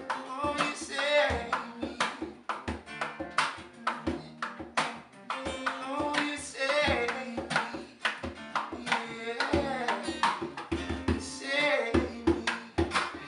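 Music: a song with singing over acoustic guitar and hand percussion, the drum strikes keeping a steady beat.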